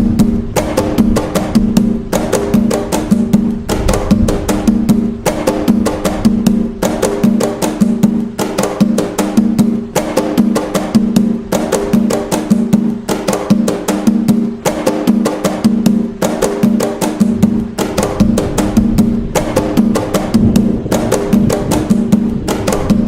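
Atabaque hand drums playing the nagô rhythm (toque de nagô) of Umbanda: a fast, steady stream of strikes over a ringing drum tone, without a break.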